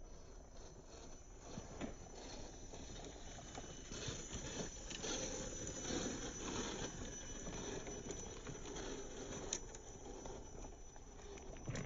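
A scale RC rock crawler driving over rocks. Its small electric motor whines faintly while the tyres make a patter of crunches and clicks on stone and gravel, with a sharp click near the end.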